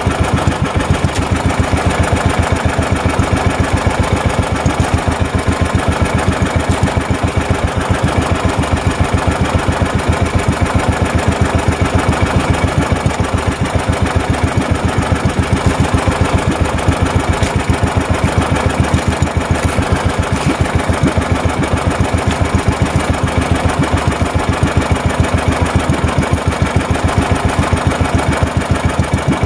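Motorized outrigger boat's engine running steadily under way, with an even pulsing beat.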